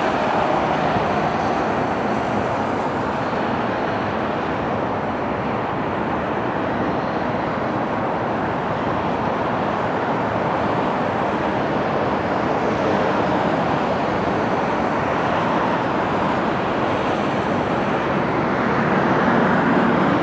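Airbus A380 on final approach heard from a distance: a steady, broad jet roar that grows slightly louder near the end as the aircraft nears.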